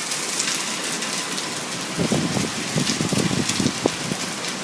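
Heavy rain pouring steadily, with a rough, uneven low rumble for about two seconds midway.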